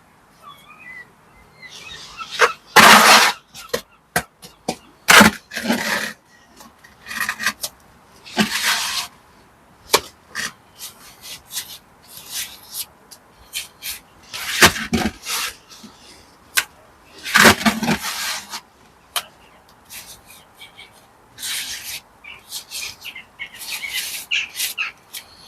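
Irregular scraping strokes of a hand tool on masonry, each about half a second to a second long, with a few sharp clicks in between.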